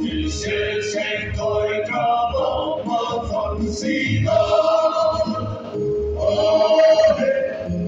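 A men's choir of about a dozen voices singing together into microphones, in phrases with long held notes in the second half.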